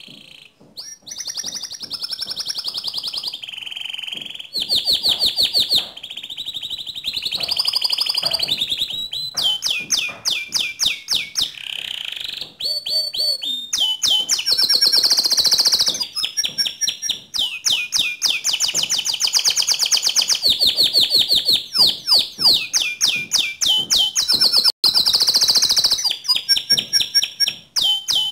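Domestic canary singing a long, loud, unbroken song of rapid trills and rolls, switching to a new phrase every second or two.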